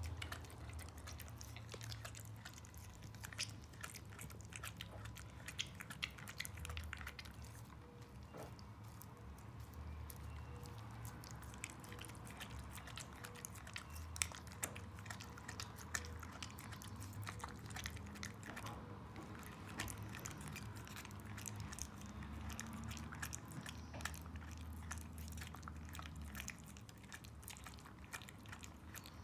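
Border collie gnawing and chewing a raw meaty bone: irregular crunches and clicks of teeth on bone and meat. One sharper crack comes about fourteen seconds in.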